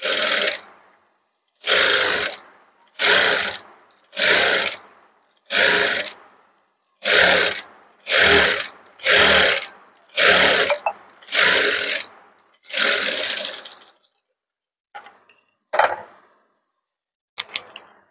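Industrial flat-bed sewing machine stitching ready-made piping into a blouse seam in short stop-start runs. There are about ten runs of about a second each, then a few shorter ones near the end, with silence between them.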